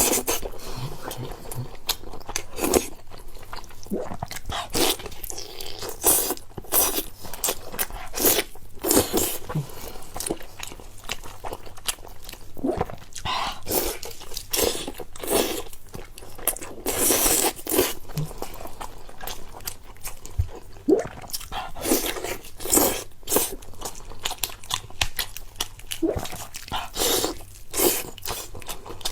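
A person eating close to the microphone: irregular crunching bites and chewing, several a second, some bites louder than others.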